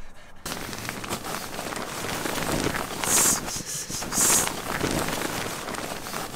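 Rustling and crinkling of nylon tent fabric and inflatable sleeping pads being handled and shoved about, with two sharper swishes about three and four seconds in.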